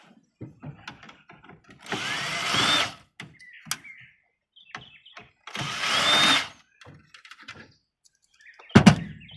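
Cordless drill-driver running twice, about a second each time, its whine rising in pitch, as it backs screws out of the point-of-sale unit's casing. Small clicks and handling noises sit between the runs, and a sharp knock comes near the end.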